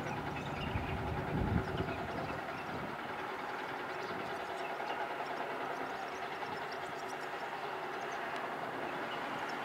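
Steady background noise with a low rumble that swells briefly about one and a half seconds in, and faint scattered high ticks.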